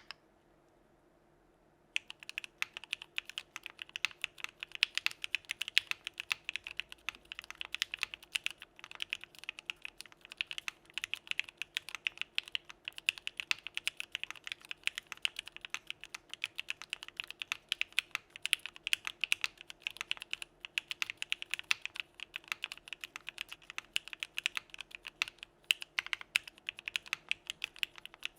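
Continuous fast typing on a Geonworks Frog mechanical keyboard with Gateron Blue Bubblegum linear switches, lubed, mounted in an aluminum plate under CRP keycaps. The keystrokes start about two seconds in and keep up a dense, even patter.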